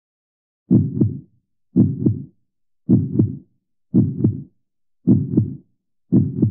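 Heartbeat sound effect: slow, steady low double beats (lub-dub), about one a second, starting just under a second in.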